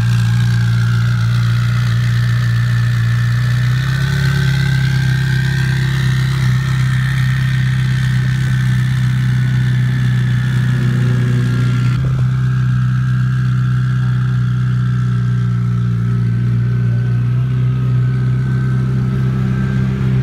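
Twin-turbo Ferrari 458's V8 idling steadily, a loud low engine hum whose note shifts slightly about four seconds in and again about twelve seconds in.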